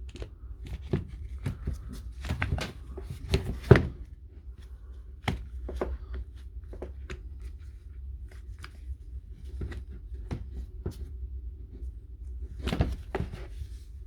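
Clicks and knocks of impact wrench parts being handled and fitted together during reassembly, with the loudest knocks a few seconds in and another cluster near the end.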